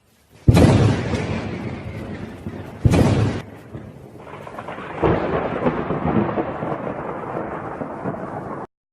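Thunderstorm sound effect: three thunderclaps, about half a second, three seconds and five seconds in, each rolling away into the hiss of rain. It cuts off abruptly near the end.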